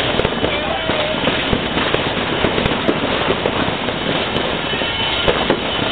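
Fireworks display going off: a dense, unbroken stream of sharp pops and crackles.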